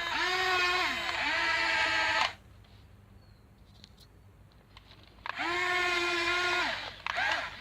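Electric drive motors and gearbox of a Huina 1520 RC bulldozer whining in bursts, each rising in pitch as it spins up, holding steady, then falling as it stops. The motors pause for about three seconds in the middle, with only a few small clicks, then whine again.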